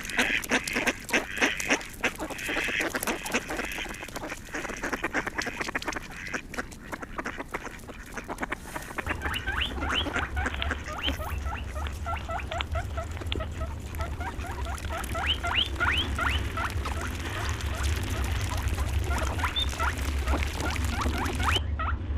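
Ducks quacking in rapid, overlapping calls for about the first eight seconds. Then a new clip starts, with a steady low hum under many short, high, rising chirps.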